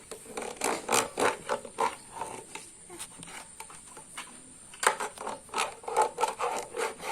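Hand saw rasping back and forth in short, uneven strokes, about three a second, lighter for a couple of seconds in the middle.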